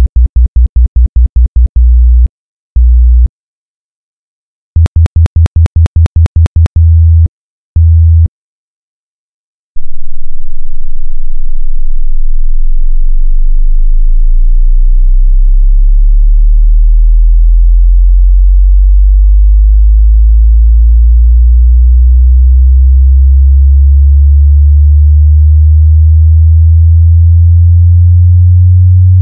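Pure sine-wave bass test tones for a bass rattle test: a 60 Hz tone pulsed in a fast string of short bursts, then one longer burst, then the same pattern at 82 Hz. After a pause of about a second and a half, a continuous low sine tone starts at the very bottom and rises slowly to about 75 Hz by the end.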